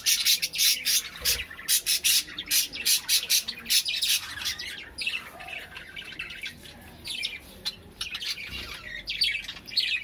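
A flock of caged aviary birds chirping in quick, high-pitched calls, densest over the first few seconds, thinning out around the middle and picking up again near the end.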